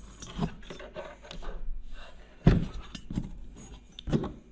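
Knocks, clicks and rubbing of a diesel bunk heater's aluminium housing and burner parts being handled and fitted together on a workbench. There is a sharper knock about two and a half seconds in and another near the end.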